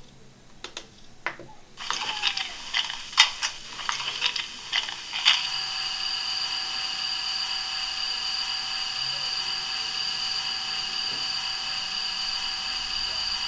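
Bachmann DCC sound decoder in a model Class 66 diesel locomotive, playing through the model's small speaker. Clicks and knocks of the start-up sequence come first, and from about five seconds in the engine settles into a steady idle with an unchanging pitch.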